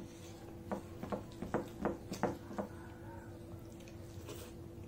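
Close-up eating sounds as rice and dal are mixed by hand and eaten: a run of about six short, wet clicks over two seconds, with a faint steady hum underneath.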